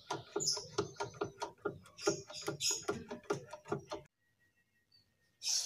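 Quick, irregular clicking and tapping, several clicks a second, with birds chirping over it; the sound cuts out abruptly about four seconds in, and a bird chirps once near the end.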